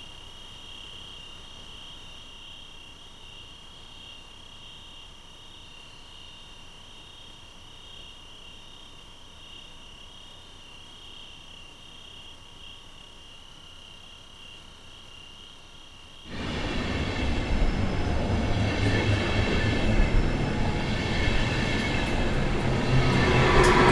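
Steady insect chirring over a faint hiss. About 16 seconds in, a passing train cuts in abruptly: loud rumble of wheels on rail, with a brief wheel squeal near the end.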